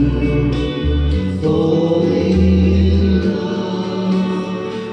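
Music with singing voices in a choir-like, gospel style, played back from a Gradiente CD 5500 cassette tape deck through a Pioneer SA-6300 amplifier and loudspeakers.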